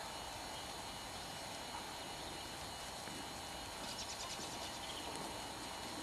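Faint, muffled hoofbeats of a horse trotting on a soft arena surface, under a steady background hiss. A brief, high, rapid chatter comes about four seconds in.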